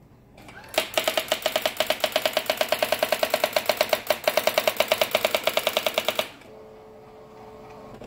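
Brother AX-350 electronic daisywheel typewriter printing its self-demo text at speed: a fast, even clatter of print-wheel strikes that starts just under a second in. About six seconds in the strikes stop for a steady low hum, and printing starts again at the very end.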